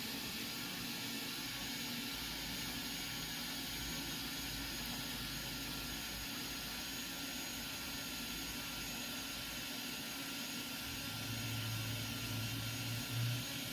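Robot vacuum running on a shag rug, a steady motor whir and hiss. A lower hum comes in near the end.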